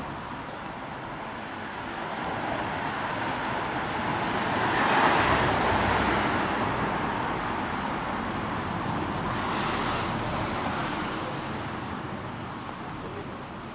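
Road traffic passing: a vehicle swells up and fades away, loudest about five seconds in, then a second, softer pass around ten seconds.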